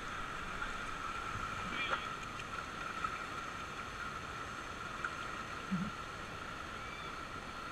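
Steady rush of whitewater rapids around an inflatable raft, with a brief knock about two seconds in.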